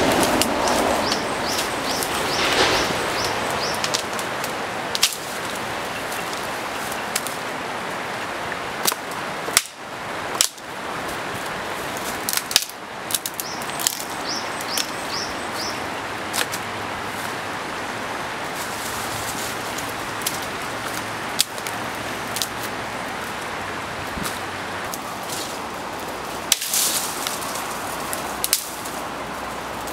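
Twigs and branches snapping and cracking, with leaves rustling, as branches are broken off by hand, in a dozen or so sharp cracks spread through the stretch. Under them is a steady rushing background, and small birds chirp in short repeated runs near the start and again about a third of the way in.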